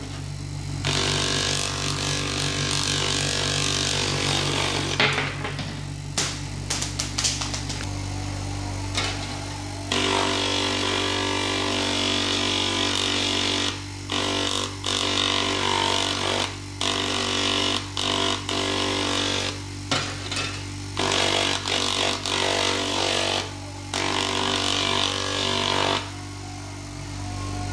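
Small bench grinder motor running with a steady hum while a stone is held against its spinning 5000-grit sanding pad, giving a hissing scrape. The scraping cuts out and back in every second or so as the stone is lifted and pressed again, and stops near the end while the motor keeps running.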